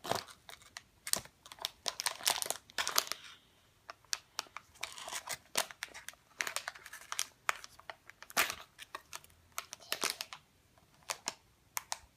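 Crinkly plastic toy packaging crackling and rustling in irregular bursts as a child handles it and tries to tear it open, without getting it open.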